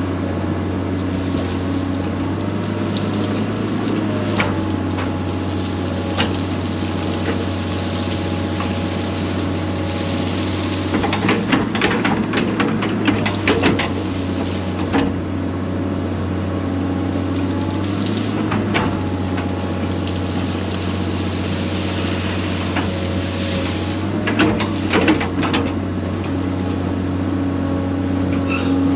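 Excavator's diesel engine running steadily under work. About halfway through and again near the end come bursts of sharp cracks and knocks.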